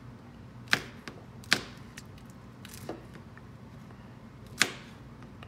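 Kitchen knife slicing serrano chilies on a plastic cutting board: three sharp, separate knocks of the blade hitting the board, about a second or more apart, with a fainter one in between.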